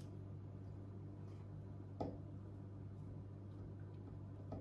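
A soft tap of a utensil against a steel mixing bowl about two seconds in, with a fainter one near the end, over a steady low hum; otherwise quiet.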